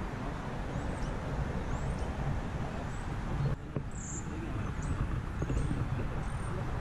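Outdoor background: a steady low rumble, with a small bird chirping in short high notes about once a second. The sound breaks off briefly about three and a half seconds in.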